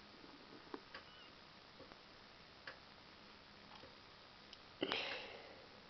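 Faint, scattered clicks of small plastic Lego pieces being handled and pressed together. A short, louder rush of noise about five seconds in.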